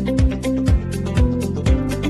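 Background music with a steady beat, about two low kick-drum thumps a second, under short pitched melody notes.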